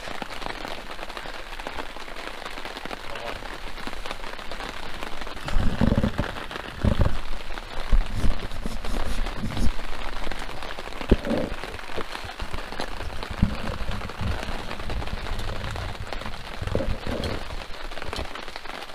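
Steady rain falling on the tarp shelter overhead. From about six seconds in there are several dull low thumps and knocks.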